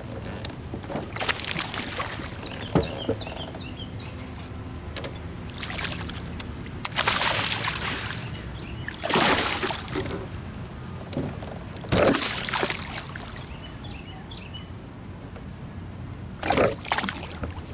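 Water splashing in repeated bursts as a hooked fish thrashes at the surface beside a kayak.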